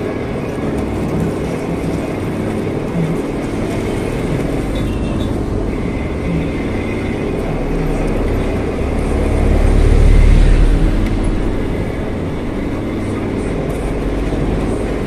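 Metal lathe running steadily, spinning a steel sliding-gate wheel on its shaft, a constant machine hum. A deeper rumble swells and fades about two-thirds of the way through.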